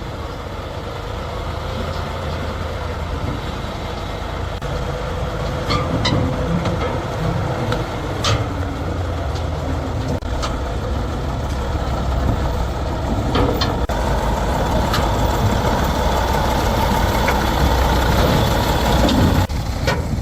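Heavy logging truck's diesel engine running steadily, with a few short sharp clanks.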